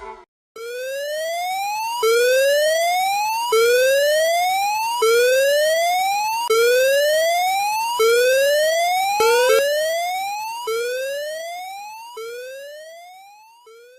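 Emergency alert alarm tone: an electronic siren whose pitch sweeps upward over about a second and a half, then drops back and starts again, about ten times. It fades out over the last few seconds.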